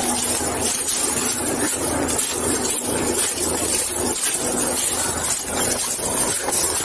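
Footsteps crunching and shuffling through dry leaf litter and undergrowth at a brisk walk, with constant rustling and a faint steady hum.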